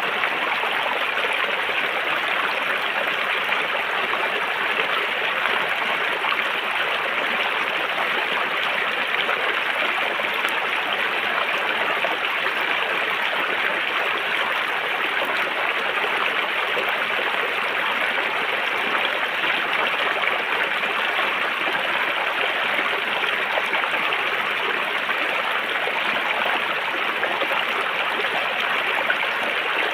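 River water flowing over rocks: a steady, even rushing and babbling.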